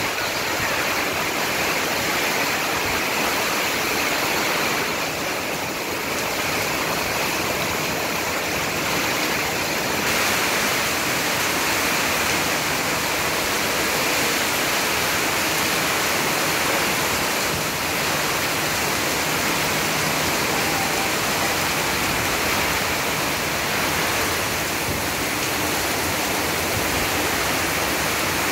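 Heavy cyclone downpour falling steadily on corrugated-tin roofs and the street, with runoff pouring off the roof edges.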